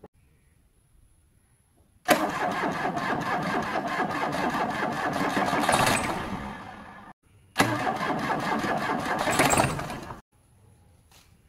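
A Tata Indica's four-cylinder diesel engine is cranked by the starter motor twice, about four seconds and then about two and a half seconds, and it turns over but never fires. The first attempt slows and fades away as it ends. The owner thinks the no-start may be down to no diesel in the tank.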